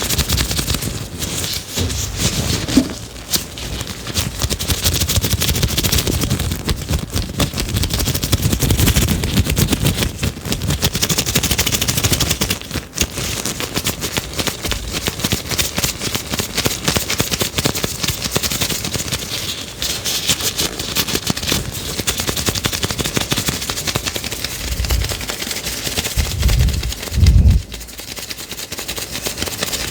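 Fast, dense crackling and tapping close to the microphone, with a few dull low thumps near the end.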